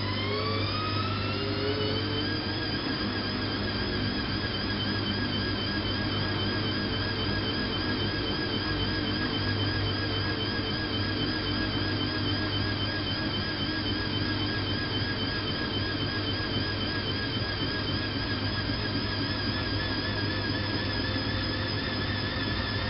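Bosch WFK 2431 washing machine's motor whining as the drum speeds up into a spin: the pitch rises for about two seconds, then holds as a steady high whine with a slight regular waver, over a low hum.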